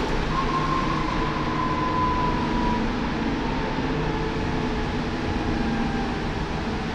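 Dennis Trident 2 double-decker bus driving, heard from its upper deck: steady engine and road noise with a rattle-free rumble, and a faint whine that falls slightly in pitch over the first few seconds.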